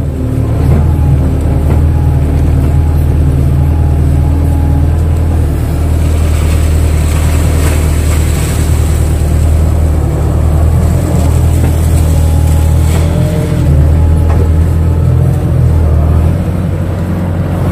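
Kato excavator's diesel engine running under working load while the machine digs, its note swelling and easing several times as the arm and bucket work.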